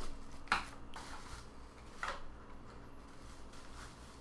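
Plastic wrapping and cardboard rustling as puzzles are lifted out of a cardboard shipping box. There is a sharp rustle about half a second in and another about two seconds in, with quieter handling between and after.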